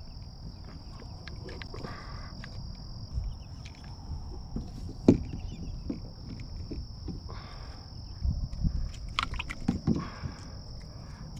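Steady high-pitched insect chirring from the marsh grass, over scattered knocks and clicks of fishing gear handled on a plastic kayak. The sharpest knock comes about five seconds in, and a run of smaller knocks follows between eight and ten seconds.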